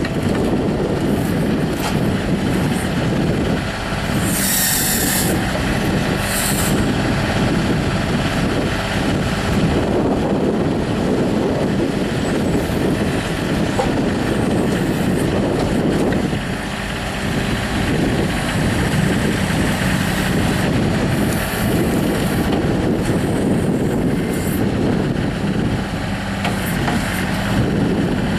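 Kubota L35 compact tractor loader backhoe's diesel engine running steadily, with short hissing bursts about four and a half and six and a half seconds in.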